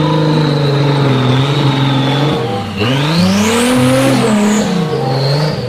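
Off-road 4x4 engine running under heavy load as it drives through deep mud, with mud and water splashing. About three seconds in the engine note dips, then climbs again as it is revved harder.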